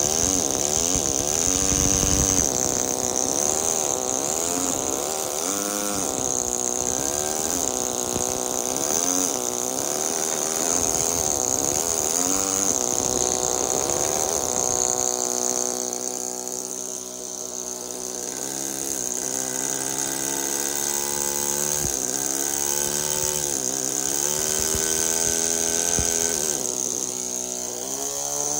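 Pneumatic carving hammer buzzing as it drives a chisel into marble, its pitch wandering up and down, over a steady high hiss. About fifteen seconds in the sound thins and grows lighter.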